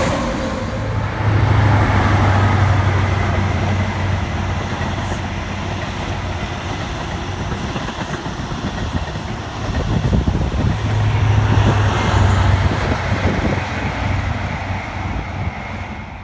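LNER InterCity 125 High Speed Train passing, its two diesel power cars droning in turn: the leading one just after the start and the rear one about ten seconds in, with wheel noise from the coaches between, fading near the end. At the very start, the tail of a passing LNER Class 91 electric train.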